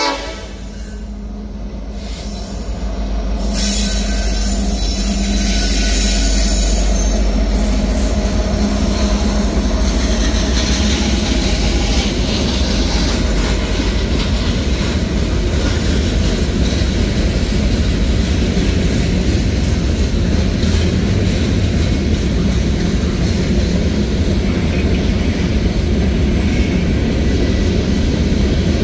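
Norfolk Southern freight train going by close at hand: the diesel locomotives come past, growing louder over the first few seconds. Then comes a steady rumble and rattle of freight cars rolling over the rails.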